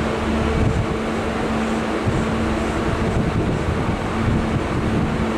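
Wind buffeting the microphone over a steady low rumble, with a faint hum that comes and goes.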